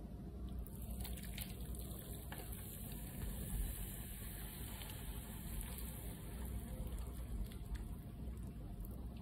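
Hot water poured in a steady stream from an electric kettle into an instant noodle cup, splashing over dry vermicelli noodles and seasoning as the cup fills.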